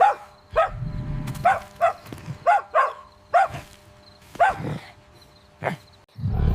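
Small dog barking, about nine short barks, some in quick pairs, over a low rumble in the first couple of seconds. Just before the end a loud, steady low rumble sets in.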